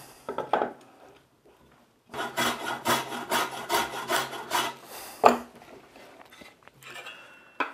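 Small hand plane taking a quick run of short strokes along the edge of a board, about three a second, knocking the corner off so the end grain won't split out during planing. A sharp knock follows about five seconds in.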